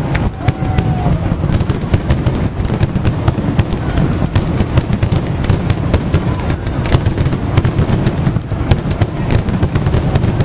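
Fireworks finale at close range: a dense, unbroken barrage of shells launching and bursting, with crackling in between.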